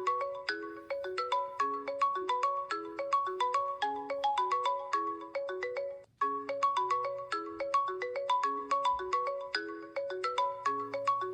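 JusTalk Kids app ringtone: a quick looping melody of short notes, about four or five a second. It breaks off for a moment about six seconds in and starts over from the top.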